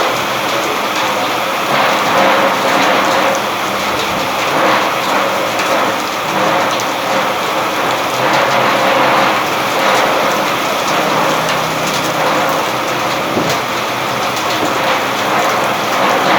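Steady rain falling: an even, continuous hiss made up of many small drop strikes.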